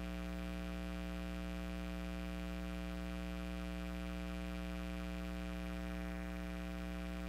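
Steady low electrical hum with a stack of evenly spaced overtones that never changes in pitch or loudness, typical of mains hum on the audio feed.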